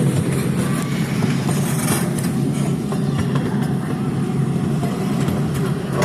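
Steady low rumble of a vehicle in motion, with a few faint clicks and rattles.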